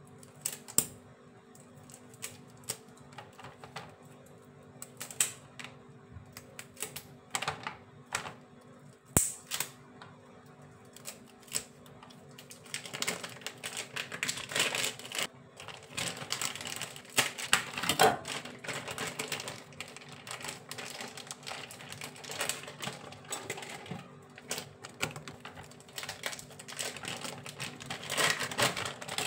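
Thin plastic wrappers crinkling and crackling as naem (Thai fermented pork sausages) are peeled open by hand: irregular clicks and rustles, sparse at first and much busier about halfway through, over a faint steady hum.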